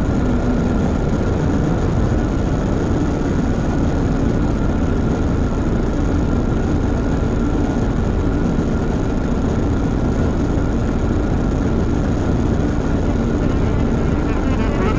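Experimental synth noise music: a steady low drone of dense noise, with faint high tones held above it.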